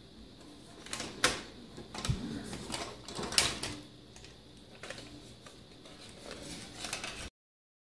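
The plastic body shell of a Promark GPS Shadow drone being handled and pulled apart: a string of sharp clicks and knocks of hard plastic with rustling between them, the loudest snaps about a second and a half and three and a half seconds in. The sound cuts off suddenly near the end.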